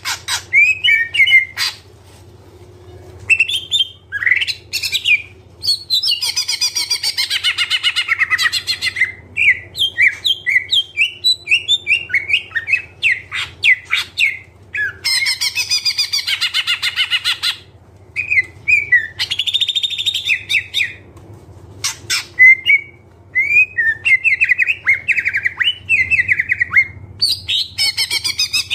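Leafbird (cucak ijo) singing vigorously: a rapid, varied run of short chirps and whistles, broken several times by dense, harsh chattering phrases of a few seconds each, the kind of full song packed with mimicked phrases that keepers call "full isian".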